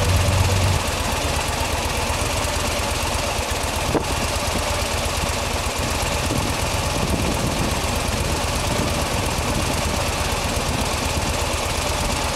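An engine running steadily, a low rumble under a loud even hiss, with one short click about four seconds in.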